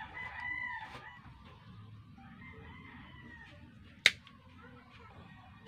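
A rooster crowing in the background, one held call in the first second and fainter calls after it, then a single sharp click about four seconds in.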